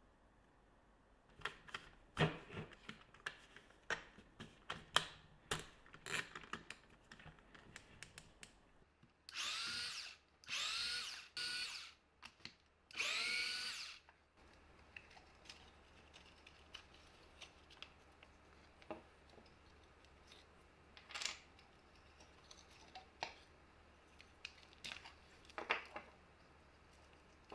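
A cordless drill-driver runs in four short bursts of about a second each, each starting with a rising whine as the motor spins up, backing out screws from a cordless drill's battery mount. Before and after, scattered clicks and knocks of plastic housing parts being handled.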